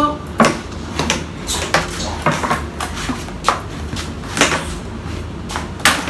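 Scattered light clicks and knocks, the loudest near the end: a metal handcuff and the white plastic chair it is locked to, rattling and bumping as the cuffed person moves.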